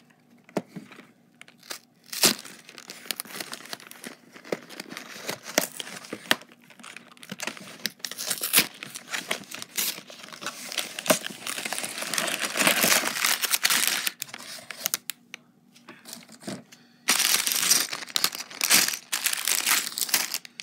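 Cardboard Lego box being opened and sealed plastic bags of Lego pieces handled: a sharp snap about two seconds in, then irregular spells of plastic crinkling and rustling, loudest in two stretches in the second half.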